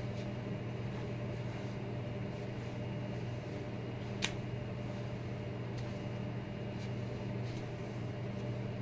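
Steady mechanical hum of a room appliance, with a single sharp click about four seconds in.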